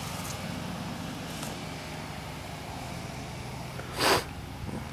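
A steady low machine hum, like an engine running, with one short, loud burst of noise about four seconds in.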